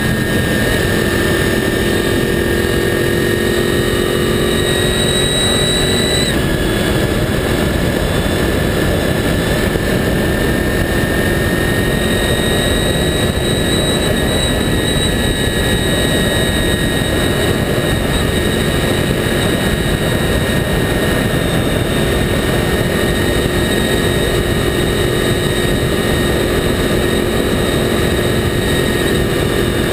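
Honda VFR800's V4 engine running at road speed on a motorcycle, heard from a camera mounted low by the front wheel under heavy wind and road noise. The engine's pitch dips about six seconds in, then holds and slowly climbs again.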